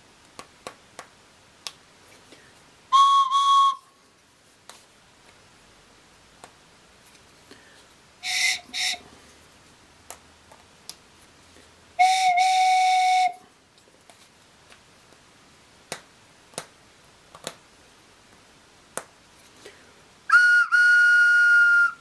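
Handmade wooden whistle pipes blown one at a time in short toots, each a single steady note, at several pitches. A brief higher note comes about three seconds in, two short toots near nine seconds, a longer, lower toot around twelve seconds, and two higher toots near the end. Light clicks and taps of the wooden pieces being handled come in between.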